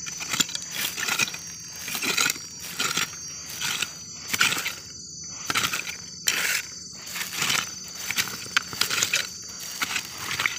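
A small digging tool scraping and jabbing through soil and small stones in repeated strokes, about one or two a second, while digging for buried earthstar (hed phor) mushrooms. A steady high insect drone runs underneath.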